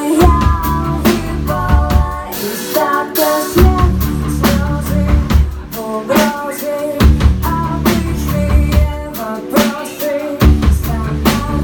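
Live band playing: a woman singing over a drum kit and other instruments.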